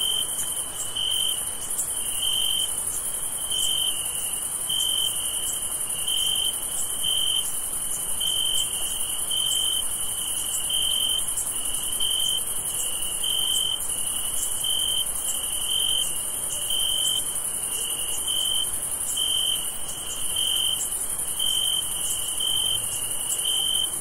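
Crickets chirping: a high trill that pulses about once a second, over a steady, higher-pitched insect chorus.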